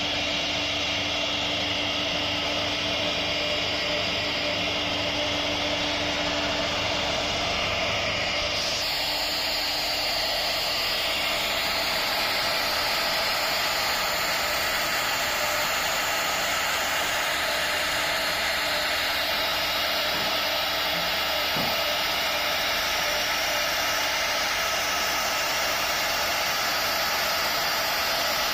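CNC router spindle running steadily with a fine bit carving a relief pattern into a wooden panel: a constant high whine over cutting noise. The sound shifts in tone about eight seconds in, then holds steady.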